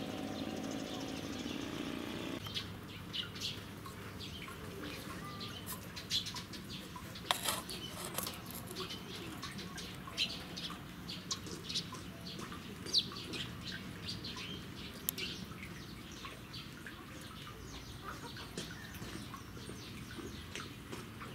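Small birds chirping, many short high calls scattered irregularly over a steady outdoor background. A steady low hum in the first two seconds stops abruptly.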